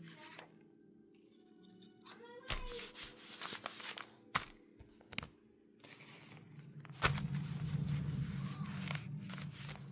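Light paper rustling and crinkling as a printed Bluey picture sticker is handled and laid on a white paper gift bag, then a steadier rubbing from about seven seconds in as a hand smooths it flat onto the paper.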